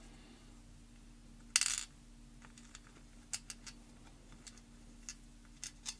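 Small metal lock parts clicking and rattling as a padlock cylinder is worked apart over a pinning tray. There is a short metallic clatter about one and a half seconds in, then a string of light, sharp clicks.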